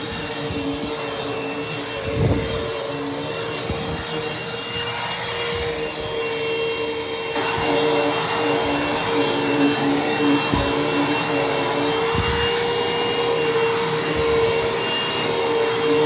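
Dirt Devil SD12000 corded hand vacuum running on carpeted stairs: a steady motor whine under the hiss of suction, the hiss growing louder about seven seconds in. A few light knocks as the nozzle bumps the steps.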